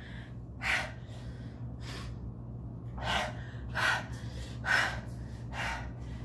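A man gasping sharply through an open mouth, about six quick breaths in a row just under a second apart, as he pants against the burn of hot pepper sauce on his lips and mouth.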